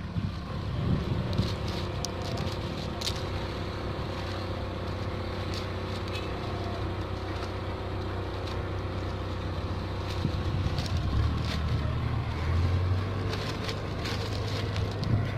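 Case 580T backhoe loader's diesel engine running under working load, with scattered sharp knocks and scrapes as the bucket moves coral rock. The engine hum gets louder about eleven seconds in.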